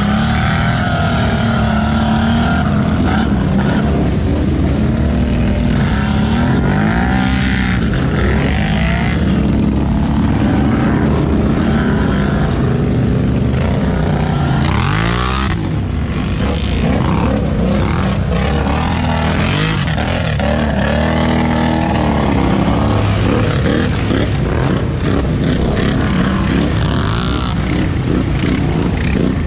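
ATV engines revving up and down in mud, the pitch rising and falling again and again, with one quick sharp rev about halfway through.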